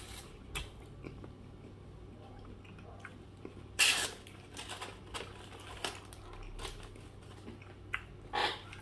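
A man chewing a mouthful of burger, with soft wet mouth clicks and smacks. Two louder breaths come about four seconds in and near the end.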